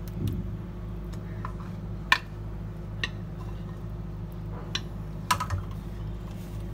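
Scattered light clicks and taps of kitchen utensils against a metal baking tray and bowl as custard is poured in, about five in all, the sharpest about two seconds in, over a steady low hum.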